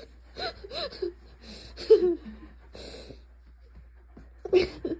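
A person laughing in short, breathy, wheezy bursts, loudest about two seconds in and again near the end.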